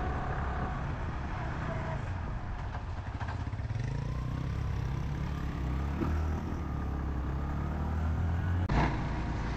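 Suzuki GS150 motorcycle's single-cylinder four-stroke engine running while riding, pulling a little harder about four seconds in. A single sharp knock near the end.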